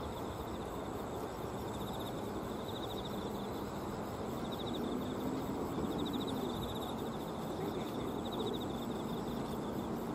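Insects in the riverside grass chirping in repeated short, rapid pulsed trills, each about a second long, over a steady outdoor background noise.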